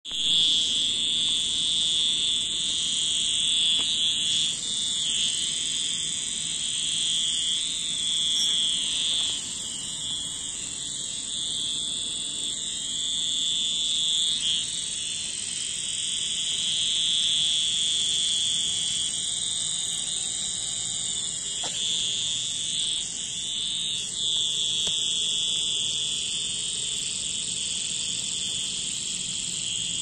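A chorus of cicadas buzzing: a continuous, shrill drone that eases off briefly a few times.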